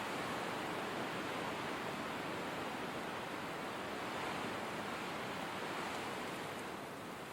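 Blizzard wind: a steady rushing hiss that swells and eases slightly, a little softer near the end.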